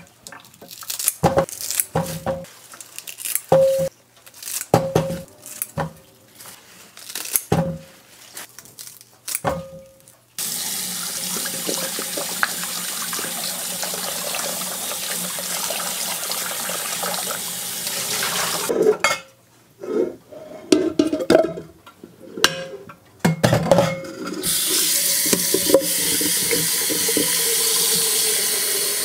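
Kitchen faucet running into a stainless-steel sink as beets are rinsed in a glass bowl under the stream, starting about ten seconds in, breaking off, then running again for the last few seconds. Before and between the runs comes a string of sharp knocks and clatters, each with a short ring.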